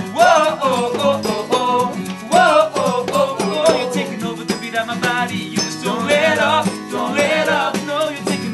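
Live acoustic band music: acoustic guitar strumming with tambourine and maracas shaken in rhythm, and wordless sung vocal runs over it.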